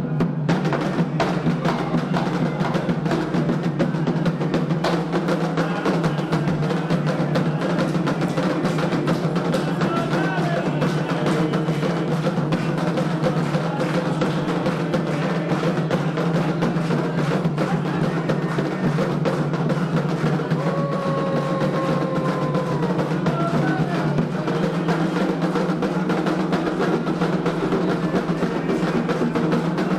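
Candomblé ritual drumming: atabaque hand drums played in a fast, dense, unbroken rhythm.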